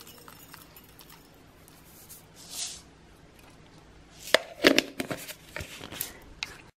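A short soft rustle about two and a half seconds in, then a cluster of sharp light clicks and taps, with a few more shortly after.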